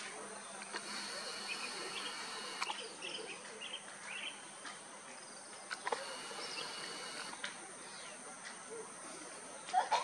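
Steady high-pitched insect drone, like crickets or cicadas, with scattered short bird chirps and calls over it, and a couple of sharp clicks.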